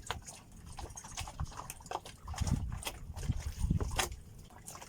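Irregular clicks and knocks, with a few heavier thumps in the middle, over a low rumble.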